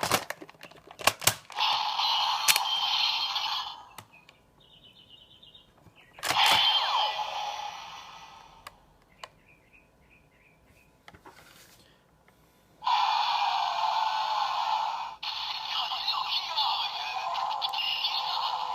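Kamen Rider Gaim toy transformation belt with the Genesis Core and Kajidoki Lock Seed, playing electronic sound effects through its small, tinny speaker. Sharp plastic clicks come first as the lock seed is worked, then two short effect calls. From about two-thirds of the way in, a longer continuous effect plays.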